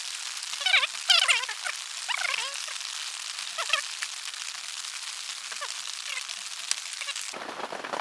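Steady rain falling, with a handful of short chirping calls, the loudest about a second in and fainter ones later.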